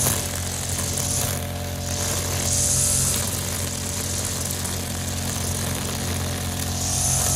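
Engine-driven brush cutter running steadily at cutting speed, with a high rushing hiss that swells several times as its cutting head sweeps through thick grass.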